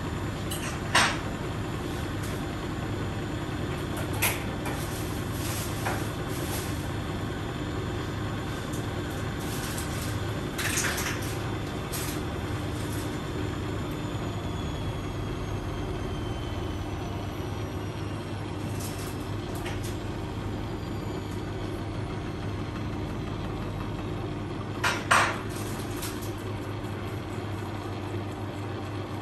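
Beko washing machine running its interim spin after the wash with a full load: a steady motor and drum hum, broken by a few sharp clinks and knocks from the drum, loudest about a second in and again near the end.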